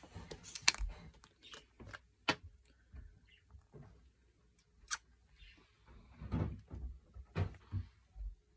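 Close handling of plastic skincare containers: about three sharp clicks in the first five seconds, then a stretch of rubbing and fumbling near the end.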